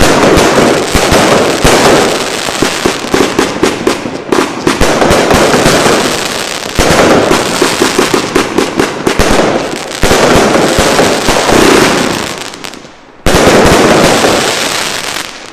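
Fireworks for All 'The Gladiator' double compound cake firing a dense, rapid barrage of shots launching and bursting, many a second. It all but stops about 13 seconds in, fires one last loud volley, then dies away near the end.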